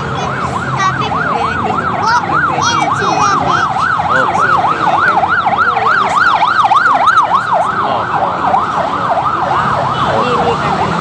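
Emergency vehicle siren on a fast yelp, its pitch rising and falling about four times a second. It grows louder toward the middle and then eases off as the vehicle goes by.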